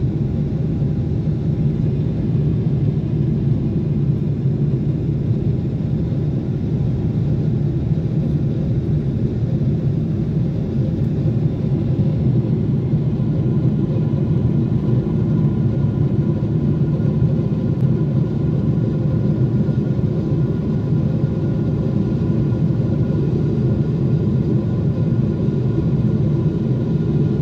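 Cabin noise of a Boeing 777-300ER climbing after takeoff: the GE90-115B turbofan beside the window and the airflow make a steady low rush, with a few faint steady whining tones above it.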